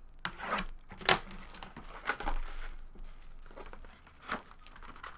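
Plastic shrink wrap being torn and crumpled off a sealed trading-card box, in a few short crinkling rips, the sharpest about a second in.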